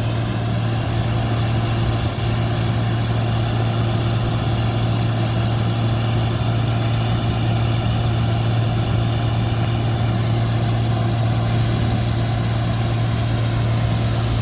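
Combine harvester running steadily while cutting soybeans: a constant deep engine hum with machinery hiss over it, unchanging throughout.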